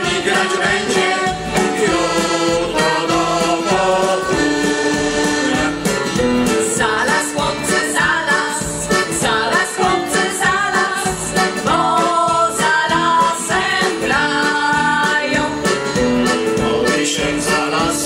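Mixed folk choir of men and women singing a Polish folk song in parts, with piano accordion accompaniment, amplified through stage microphones and speakers. The singing runs on without a break, in long held notes.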